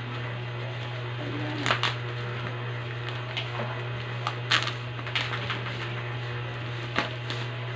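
Plastic parcel packaging being handled: a few short, sharp crinkles and rustles over a steady low hum.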